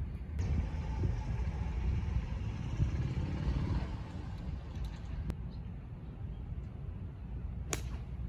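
A golf club striking a ball on a fairway shot: one sharp, clean click near the end, over a steady low rumble of open-air background.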